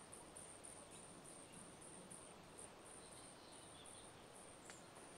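Near silence, with faint high-pitched insect chirping that repeats about three times a second.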